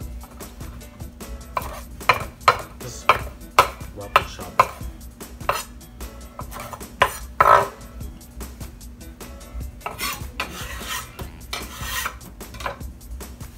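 Chef's knife chopping celery leaves on a wooden cutting board: a run of sharp knocks, about two a second, through the first half. Near the end comes a softer rustling and scraping as the chopped celery goes into the salad bowl.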